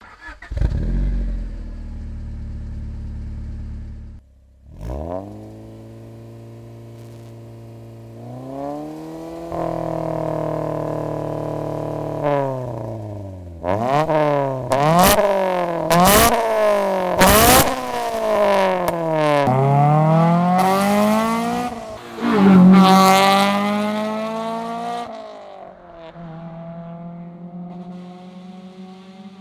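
Honda Civic Type R's four-cylinder engine through a straight-through racing muffler, idling and then revved: held at higher revs for a few seconds, followed by a run of quick throttle blips that each rise and fall, loud enough to read over 100 dBA on a sound meter. Near the end the engine note drops to a quieter steady tone as the car pulls away.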